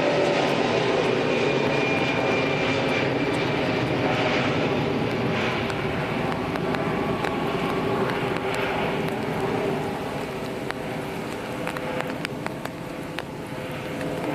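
Airbus A330-300 airliner's jet engines at climb power as it climbs away after take-off: a steady rumble with a faint high whine near the start, slowly fading as the aircraft moves off.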